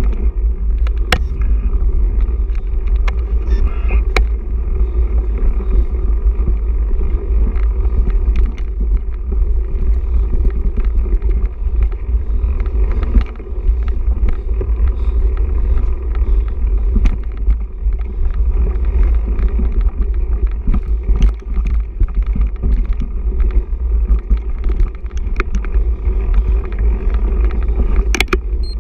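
Mountain bike riding fast over a dirt forest trail, heard through an action camera mounted on the bike or rider: a steady, heavy rumble of wind on the microphone and trail vibration, with scattered sharp clicks and rattles as the bike hits roots and bumps.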